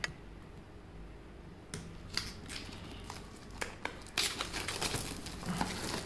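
Packaging being handled: a cardboard box being opened and its clear plastic wrapping crinkled, an irregular run of rustles and small clicks that is busiest about four seconds in.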